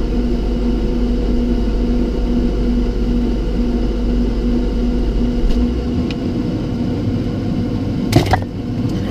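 Steady electric appliance hum: a low drone with a pulsing mid-pitched tone over it, with a brief sharp noise about eight seconds in.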